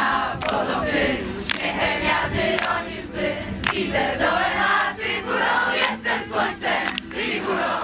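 A crowd of scouts singing together around a campfire, many voices at once, with sharp clicks scattered through.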